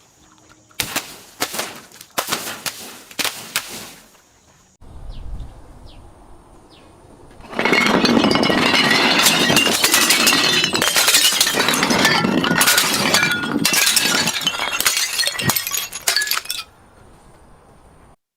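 Glass being smashed and crushed: a few sharp, loud crunching breaks in the first few seconds, then after a pause a long run of dense crackling and shattering glass that lasts about nine seconds and stops abruptly.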